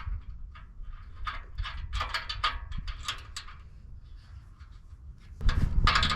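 Light metallic clicks and scrapes of a bolt being handled and fitted into the muffler joint of the exhaust. Near the end a louder rasping tool noise starts.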